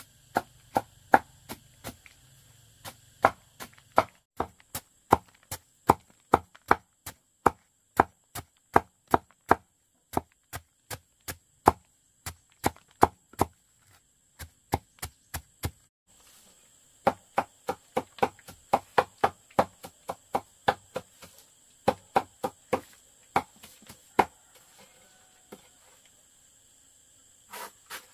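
Blade chopping in quick, even strokes, about three a second. The strokes break off briefly partway through, resume, then thin out and stop near the end.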